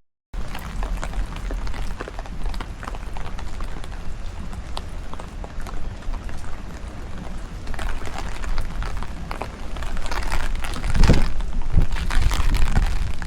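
Steady rain pattering, many small drops ticking, over the low rumble of strong wind on the microphone. The wind gusts harder in the second half. The sound cuts out for a moment at the very start.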